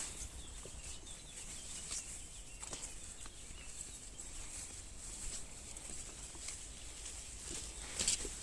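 A few scattered soft crunches and rustles of bare feet stepping on the forest floor, the loudest near the end, over a faint steady high hiss.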